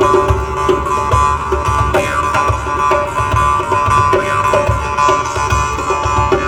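Music: a melody of held, pitched tones over a steady, regular beat.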